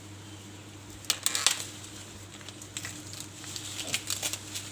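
Maize plant's leaves and husk rustling and crackling as an ear of corn is pulled and snapped off the stalk. There is a burst of crackles about a second in, then scattered lighter crackles later.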